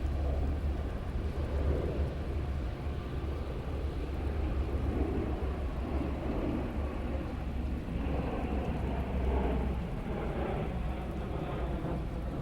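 Steady rain with a deep, continuous low rumble of distant thunder that swells and fades a few times.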